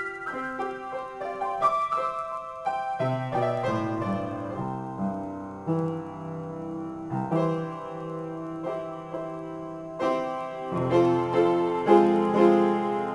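Solo piano improvisation: treble notes for the first few seconds, then bass chords join about three seconds in, and the playing grows louder again near the end.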